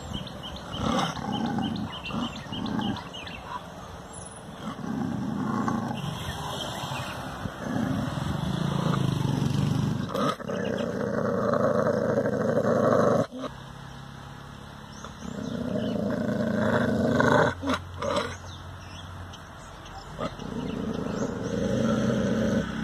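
A dog growling in long, rough stretches of several seconds each, with short breaks between them.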